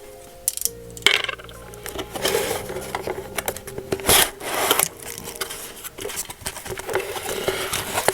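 Packaging being handled and opened, with rubbing, scraping and a few sharp clicks, over soft background music.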